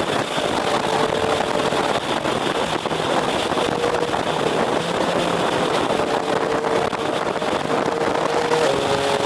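Motorcycle engine running at steady expressway speed under heavy wind rush, its tone stepping up slightly near the end.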